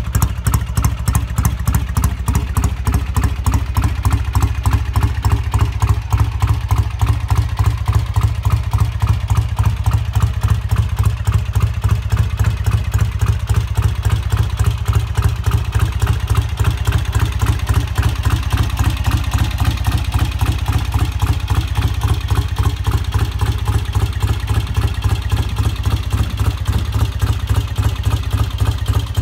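1970 BSA A65 Lightning's 650cc twin-carburettor parallel-twin engine idling with a steady, even exhaust beat.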